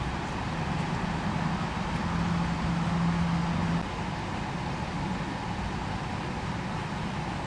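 Steady low background rumble with a low hum running over it that stops abruptly about four seconds in.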